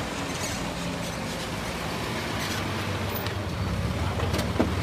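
Car engine and road noise: a steady low hum, with a couple of light clicks near the end.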